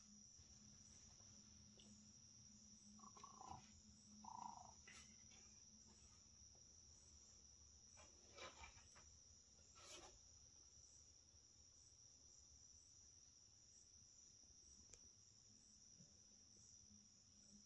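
Near silence, apart from the faint, steady, high-pitched chirring of night insects such as crickets, with a few faint short noises in the first half.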